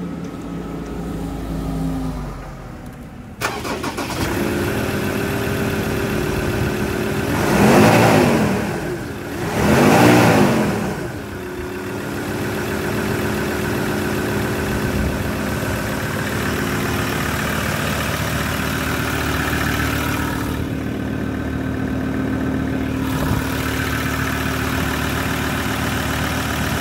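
Ford Ranger's Duratorq TDCi turbo-diesel engine catching about three seconds in and idling. It is revved twice in quick succession, each rev rising and falling, then settles back to a steady idle.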